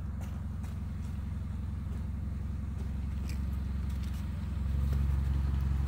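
A car engine idling: a steady low hum that grows louder about four and a half seconds in.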